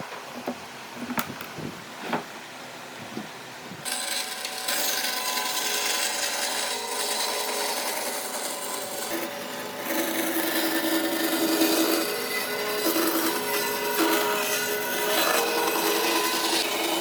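A few light wooden knocks, then about four seconds in a handheld power tool starts and runs, abrading wood with a steady motor whine under a rough grinding noise.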